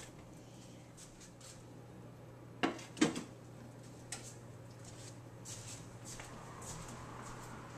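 Wall oven door opened, with two sharp clunks about three seconds in and a few lighter clicks after. A steady low hum runs underneath.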